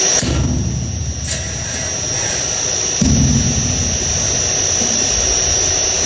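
Steady loud rush of fan and airflow noise with a constant high-pitched whine, typical of a computer-room air-conditioning space. Low rumbling handling noise close to the microphone comes in twice, briefly about a second in and again from about three seconds in to nearly the end.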